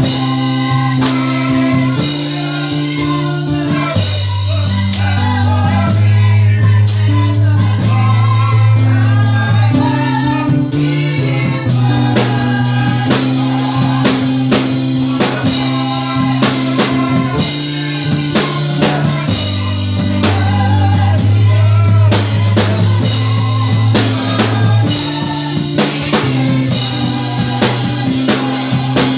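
Small gospel choir singing with a live band, drum kit and a sustained bass line underneath that changes note every couple of seconds.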